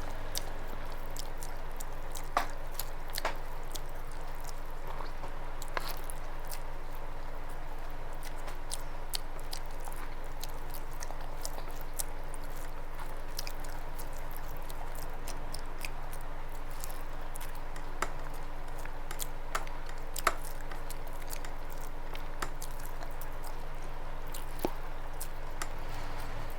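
Close-up chewing and wet mouth clicks of a person eating rice with fish curry, scattered irregularly over a steady background hum.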